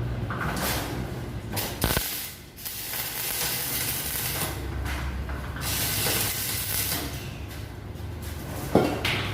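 Stick-welding arc sizzling and crackling steadily over a low hum from the welding machine, dropping away briefly about two seconds in.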